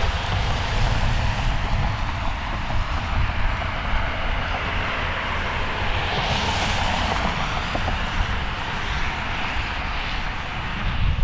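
Jet airliner engines passing by, a steady broad rush with a low rumble that swells to its loudest about six to seven seconds in.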